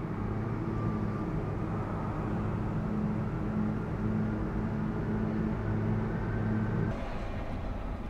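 Low, steady engine drone with a slightly pulsing hum, which cuts off suddenly about seven seconds in.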